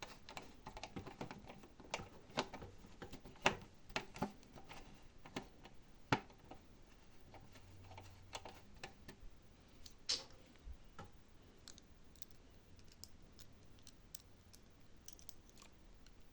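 Quiet, irregular small clicks and taps of a screwdriver driving a mounting screw into a laptop-size hard drive inside a DVR's metal case. They come thickly in the first half and more sparsely later.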